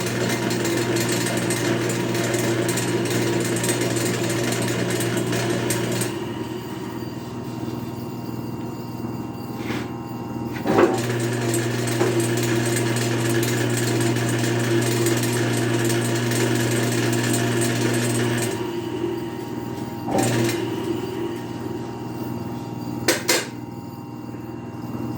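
A planer driven by a 3 hp electric motor on its first test run, with no wood being fed: it runs with a steady hum, is switched off about 6 seconds in, and starts again with a click about 11 seconds in. It runs until about 18 seconds in, then comes on again only briefly about 20 seconds in, and there is a sharp knock near the end.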